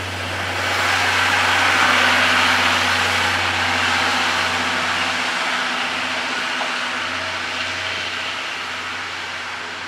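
Passenger coaches of a steam-hauled train rolling slowly past, with wheel-and-rail noise swelling about a second in and slowly fading over a steady low hum.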